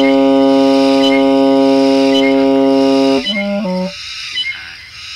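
Music: one long, steady held note, then a few short notes changing pitch about three seconds in, followed by a brief lull near the end.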